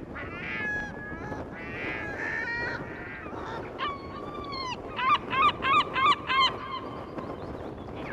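Gulls calling over heavy surf: several shorter calls, then about four seconds in a long drawn call followed by five loud calls in quick succession, about three a second, in the pattern of a gull's long call. The surf runs as a steady rush underneath.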